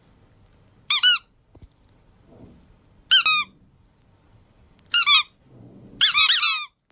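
Rubber squeaky toy squeaking in short, high-pitched bursts about every two seconds, the last a quick run of several squeaks.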